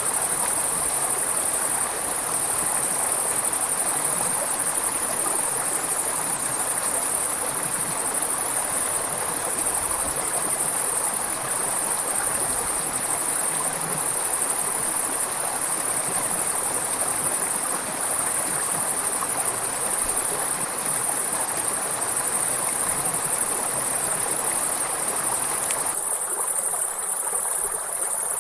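A steady, high-pitched insect chorus over the continuous rush of a flowing river. A couple of seconds before the end the water grows quieter while the insects carry on.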